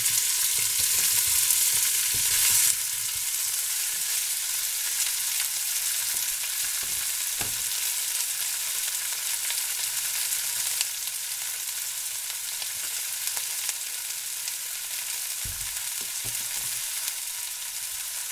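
Cubed beef sizzling steadily as it sears in a very hot stainless steel pan. The sizzle is louder for the first few seconds while the meat goes into the pan, then settles, with an occasional soft knock.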